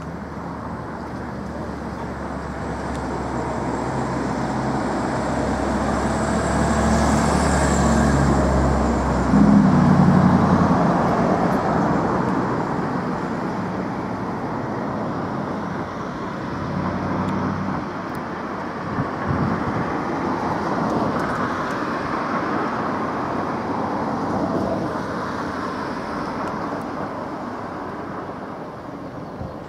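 Road traffic passing close by: a heavy vehicle's engine swells to its loudest about a third of the way in and passes, then a steady traffic rumble slowly fades.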